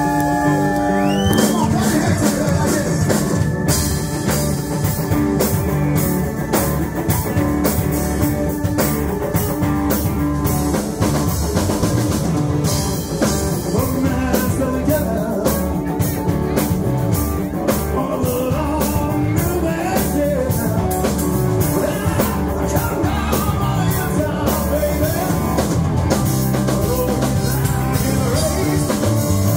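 Live rock band playing: a male singer over electric guitars, bass and a drum kit.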